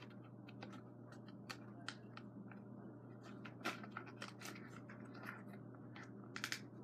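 Faint clicks and short crinkles of small plastic toy packaging being worked open by hand, a few louder ones near the end, over a low steady hum.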